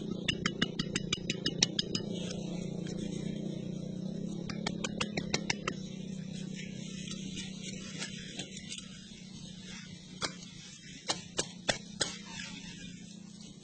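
Hand brushing and patting loose soil and dry leaves, giving quick scratchy clicks: a fast run in the first two seconds, another run around five seconds, and a few single clicks near the end, over a steady low hum.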